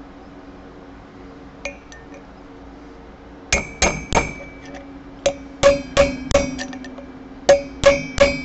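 Hammer striking a steel punch set against the bearing spacer in a Harley-Davidson Dyna's front wheel hub, to knock the stuck spacer off centre so the wheel bearing can be driven out. Sharp metal-on-metal blows with a bright ring come in three quick groups of three, four and three strikes, after one light tap.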